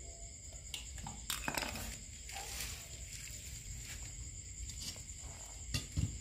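Scattered knocks and scrapes from handling a rubber air hose and a refrigeration compressor on a concrete floor, over a steady faint high-pitched whine.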